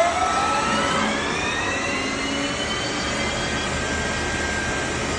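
DynaPath FB16 CNC flatbed lathe's spindle ramping up toward full RPM: a rising whine that climbs steadily and levels off about three seconds in, over a steady machine hum.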